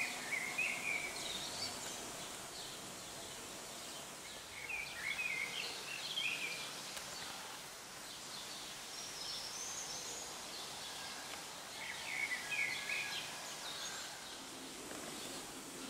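Songbirds singing in short chirping phrases every few seconds over steady outdoor background noise.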